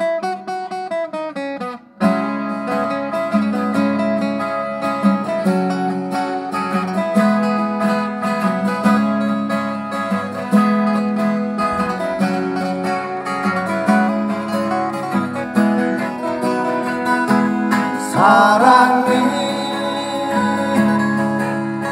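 Acoustic guitars playing a song's instrumental introduction: a lone melody line at first, then at about two seconds the guitars come in together strumming chords. A voice starts singing near the end.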